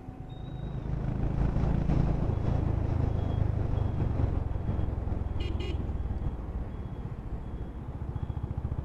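Honda H'ness CB350's single-cylinder engine running under way in traffic, picking up about a second in and easing off near the end. A vehicle horn sounds briefly about halfway through.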